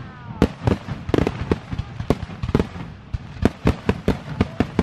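Aerial fireworks shells bursting in quick, irregular succession: a dense run of sharp bangs, about four a second.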